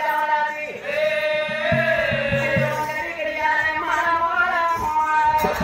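A woman singing a folk melody in long, drawn-out notes, with a few low drum beats about two seconds in and a steady drumbeat starting right at the end.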